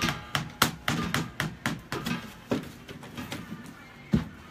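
Hard knocks and taps on a fiberglass mold shell being worked loose from its silicone mold: a quick run of about eight in the first two and a half seconds, then one loud knock about four seconds in.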